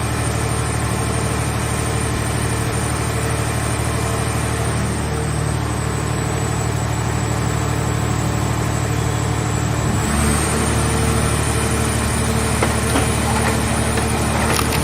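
Engine of a portable car-body baler running steadily. About two-thirds of the way through, the engine note shifts and grows slightly louder, as if a load comes on, and a few clicks and knocks follow near the end.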